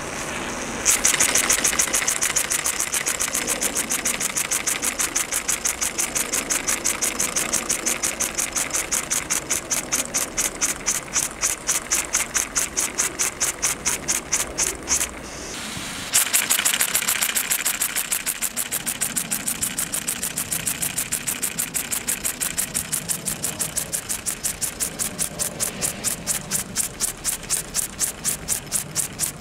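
Mamod kit model steam engine running, puffing and clattering in a rapid, even rhythm after a short hiss of steam. The beat breaks off about halfway and starts again suddenly.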